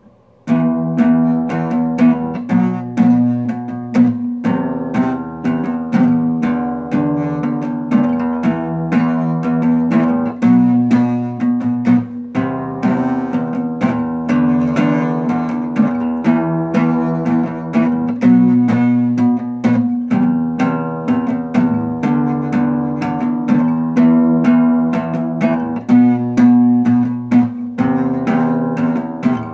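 Steel-string acoustic guitar picked with a plectrum, playing a repeating riff of single notes and chords as the instrumental introduction to a song. It starts about half a second in.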